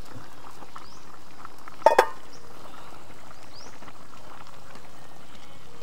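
Chicken simmering in plenty of liquid in a covered pan on the stove: a steady bubbling hiss, with a short sharp double sound about two seconds in.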